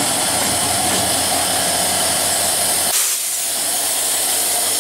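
Broad-gauge diesel locomotive passing close by as it pulls away from the station: a loud, steady hiss over a low pulsing engine beat. About three seconds in the low engine beat drops away sharply, leaving the hiss.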